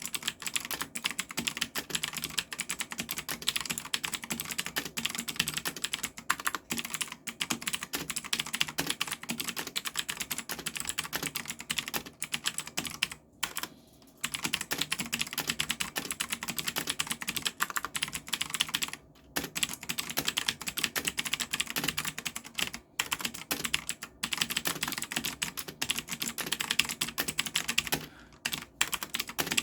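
Fast, continuous typing on a GALAX EX-03 gaming mechanical keyboard with Outemu Blue clicky switches: dense key clicks broken by a few brief pauses.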